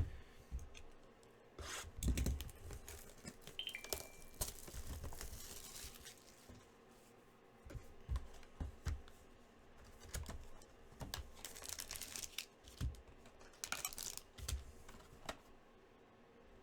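Trading-card pack wrappers tearing and crinkling, with scattered light taps and clicks of cards being handled.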